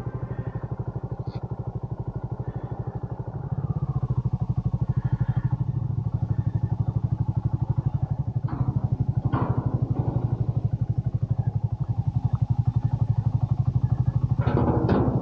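Motorcycle engine running at low revs with a steady, even pulsing beat, picking up about three and a half seconds in as the bike moves off. A few short, sharp noises sound over it near the middle and again near the end.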